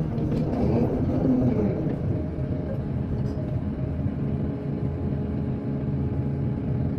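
Heavy diesel engine of earth-moving machinery running steadily with a low, even hum.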